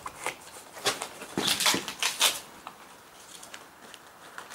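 Airsoft guns firing in a concrete corridor: a handful of irregular sharp cracks, the loudest between about one and a half and two and a half seconds in.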